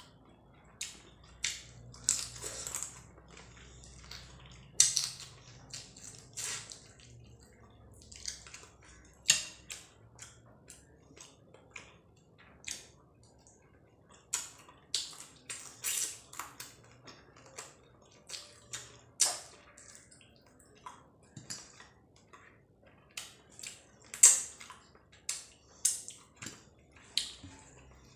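Fingers mixing and pressing cooked rice with curry on a plate, making irregular wet clicks and squishes, one or two a second.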